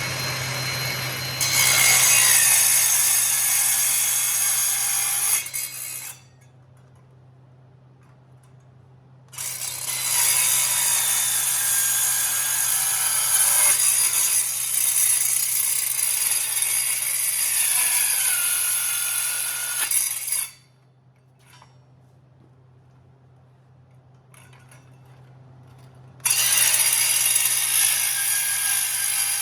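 Angle grinder cutting steel in three long passes, with short pauses where it stops and the tool is repositioned.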